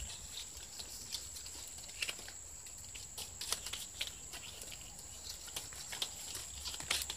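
Stiff coconut palm leaf strips rustling and crackling as they are woven over and under by hand, with irregular light clicks and ticks.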